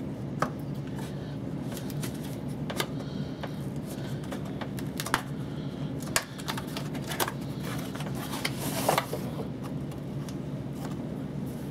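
Spyderco knife cutting open the packaging of a socket set: scattered clicks and taps from the blade and wrapping, with a longer scraping cut about nine seconds in.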